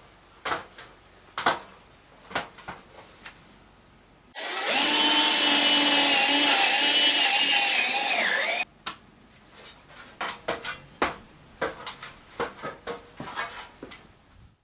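Cordless drill boring into a wooden shed wall: the motor runs under load for about four seconds with a wavering whine that dips near the end. Scattered knocks and clicks come before and after it.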